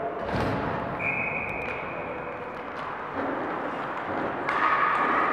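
A referee's whistle blown once, a steady high blast of about a second and a half: the signal for the shootout attempt to begin. It rings through a large ice arena over a steady hall background.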